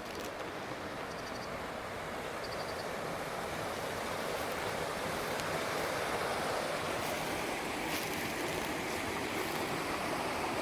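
Big Lost River water rushing below the dam, a steady wash of noise that grows gradually louder.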